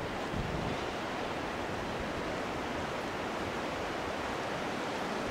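Steady, even rushing noise of wind and water at the shore, with no distinct events.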